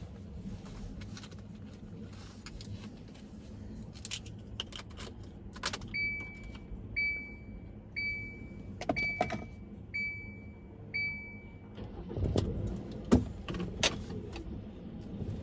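Car cabin noise: a steady low road and engine rumble with scattered clicks and rattles. About six seconds in come six electronic warning-chime beeps, one a second, and then a few louder knocks.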